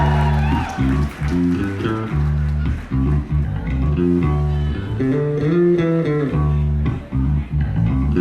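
Electric bass guitar playing a solo funk line, quick runs of notes with a slide up around the middle.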